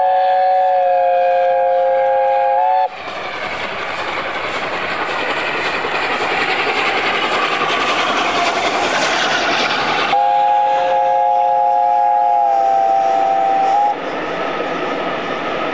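Steam locomotive's chime whistle, a chord of several notes, blown twice, a long blast at the start and another a few seconds later, each about three to four seconds. Between and after the blasts the train runs past, a loud rushing noise that builds up in the middle.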